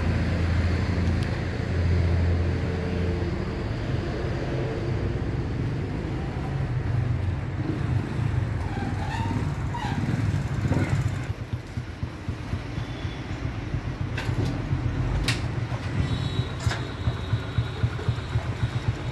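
A motor vehicle engine runs with a steady low hum. The rumble turns choppier about halfway through, and a few sharp clicks come near the end.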